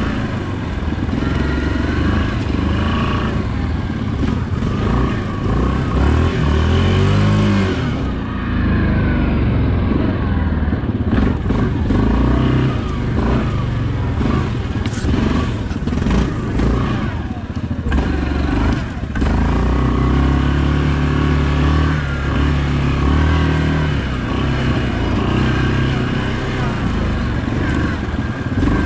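Yamaha Grizzly ATV's single-cylinder engine driving the quad along a snowy trail, its pitch rising and falling with the throttle, with a quick rising rev about six to seven seconds in.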